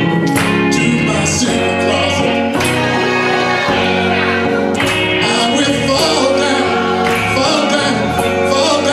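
Gospel choir singing live with band accompaniment, including an electric guitar and steady percussion hits, the voices held on long notes.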